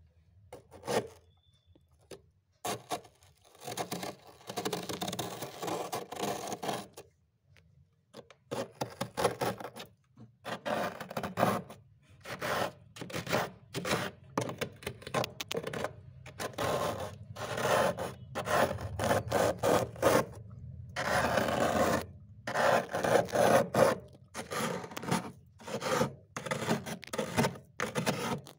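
A metal spoon scraping thick frost off the inside of a freezer, in many short, irregular strokes with brief pauses and a few longer passes.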